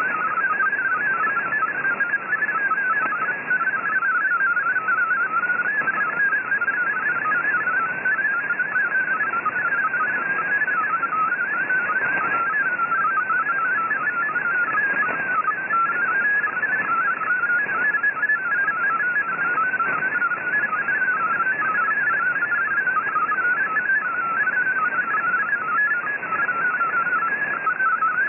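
MFSK32 digital text signal received on shortwave at 5850 kHz: a fast, unbroken stream of tones hopping around 1.5 kHz, over steady band hiss. It is the data carrying a text bulletin being decoded.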